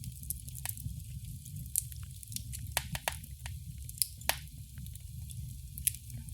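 Wood fire crackling in a fireplace: irregular sharp pops and snaps over a steady low rumble, with a cluster of louder pops around the middle.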